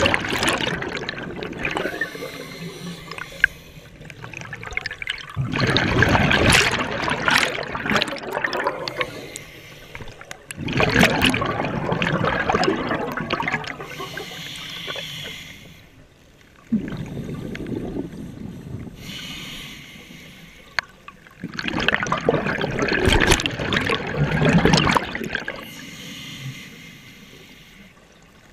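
Scuba diver breathing through a regulator underwater. Bursts of exhaled bubbles come about every five seconds, with a quieter hiss of inhalation between them.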